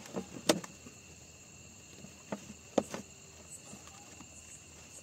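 Crickets chirping steadily, with a few sharp clicks, the loudest about half a second and nearly three seconds in.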